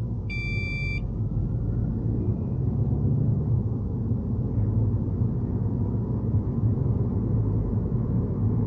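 Steady low road and engine rumble inside a moving car's cabin. About half a second in, a short electronic beep sounds once.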